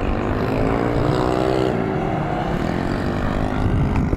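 Motor vehicle engine revving, its pitch rising and falling unevenly.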